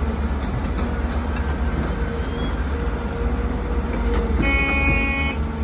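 Heavy diesel engine of a Kobelco SK250 excavator running with a steady deep rumble as it works. About four and a half seconds in, a horn sounds for about a second.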